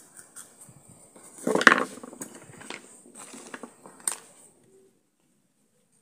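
Dry plant pieces handled and crackling: a burst of crackling about one and a half seconds in, then a few scattered clicks.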